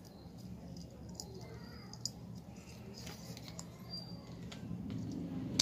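Faint, scattered clicks and light handling noises of small plastic parts as an eagle-eye LED light is pushed into a drilled plastic bottle cap, over a low steady hum.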